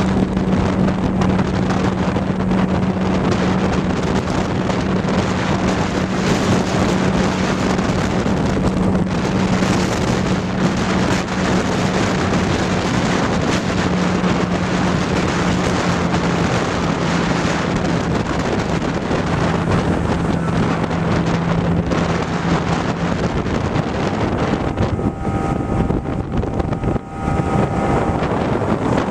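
Boat engine running underway with a steady drone that drops a little in pitch partway through and fades out about three-quarters of the way in, under heavy wind noise on the microphone and water rushing past the hull.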